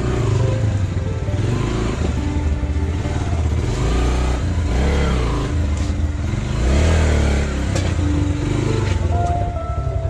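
Motorcycle engine running, its pitch rising and falling as it revs, with background music underneath.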